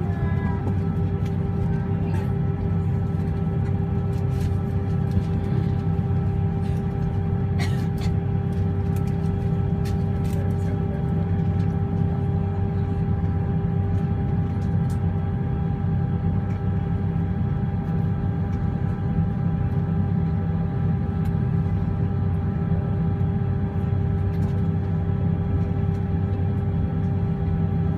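Airliner jet engines heard from inside the passenger cabin during taxi: a steady low rumble with a constant droning hum, holding at the same pitch and level.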